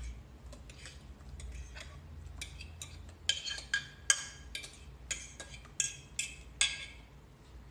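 A metal fork clinking and scraping against glass dishes as mashed banana is pushed out into a bowl of batter: about a dozen sharp clinks in the middle seconds, with a steady low hum underneath.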